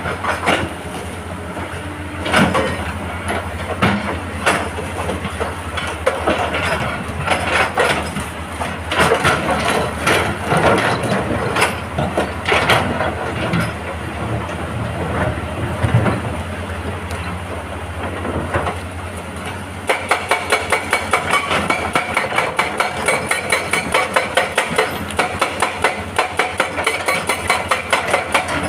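Excavator diesel engine running under irregular knocks and clatter of rock and steel. About two-thirds of the way in, a hydraulic rock breaker starts hammering in a fast, even rhythm that keeps on.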